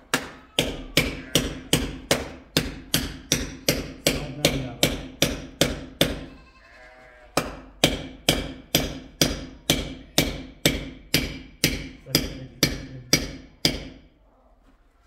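Claw hammer striking the base of a brick wall in a steady run of about three blows a second, each blow ringing briefly. The blows pause for about a second and a half just past six seconds in, then resume and stop near the end.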